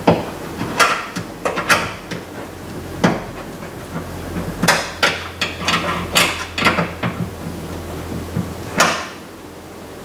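Irregular sharp metallic clicks and knocks, some in small clusters, from a hand tool tightening the outside door handle's 8 mm nuts inside the steel shell of a Dodge Durango rear door.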